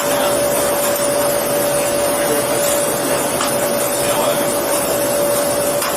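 Steady machine hum with a constant tone over an even hiss.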